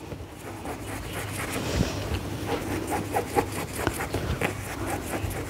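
Hands shaping and stretching chapati dough on a counter: soft, irregular taps and rubbing, over a low steady hum.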